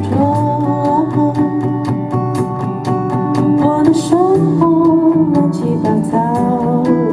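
Live folk-pop song: a voice singing over plucked guitar, with low bass notes that step to a new pitch now and then.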